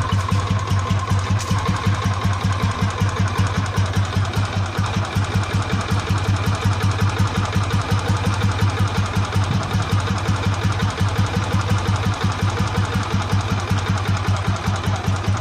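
Old-model Royal Enfield Bullet Electra single-cylinder four-stroke idling through a Patiala silencer, giving its characteristic thump: a steady, even beat of exhaust pulses.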